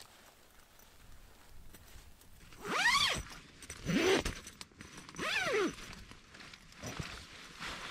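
Zipper on a Hilleberg Soulo tent door being pulled: three quick zips about a second apart, each a sweep that rises and falls in pitch.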